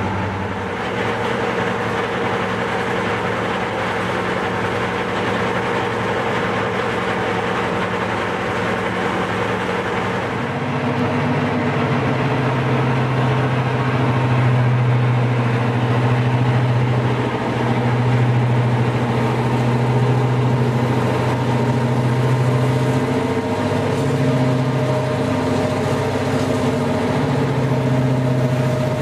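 Class 55 Deltic diesel locomotive 55007 Pinza, its two Napier Deltic 18-cylinder two-stroke opposed-piston engines idling with a steady hum. It gets louder and fuller in the low notes about ten seconds in.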